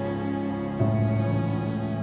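Instrumental background music with long held notes that change to a new chord about a second in.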